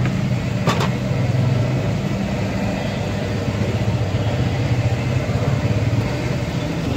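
Potato chips deep-frying in a sunken fryer, the oil bubbling and sizzling steadily over a continuous low rumble, with one short metallic clink just under a second in.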